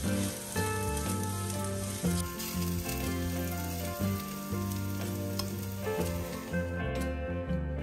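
Food sizzling as it fries in oil in a pan, with some stirring, over steady background music.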